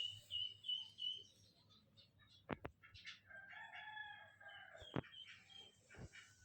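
A rooster crows once in the background: a single pitched call about a second and a half long, dipping at the end. Before it comes a run of short high chirps, and a few sharp clicks fall in between.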